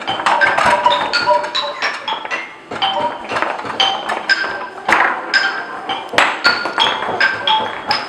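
Music of quick struck notes with a wooden, xylophone-like ring, mixed with sharp wooden knocks, several a second throughout.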